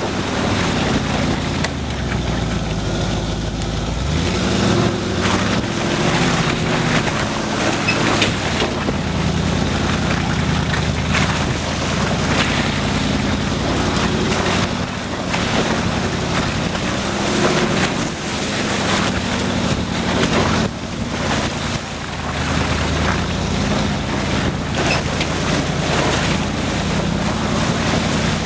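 Off-road 4x4's engine running at low revs, its pitch rising and falling as it crawls along a rutted mud track, under a steady rushing noise with occasional knocks from the vehicle over the ruts.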